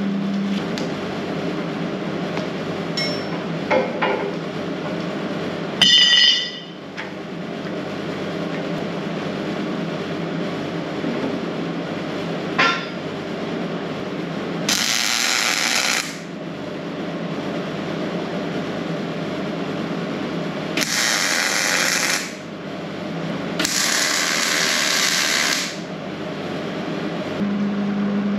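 Hobart MIG welder crackling steadily as it lays welds on a square-tube steel frame, with louder, hissier stretches about halfway through and twice near the end. A single ringing metal clank comes about six seconds in.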